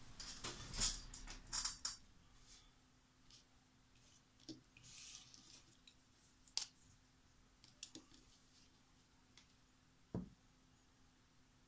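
Faint desk handling noises: a rustle of paper and tools in the first two seconds, then a few scattered light clicks and taps as a hobby knife and pen are handled, over a faint steady hum.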